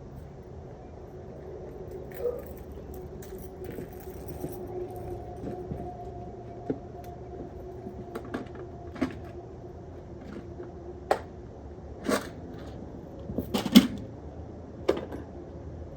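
Scattered sharp clicks and clinks of hand work on small metal parts, the loudest a cluster near the end, over a steady low hum.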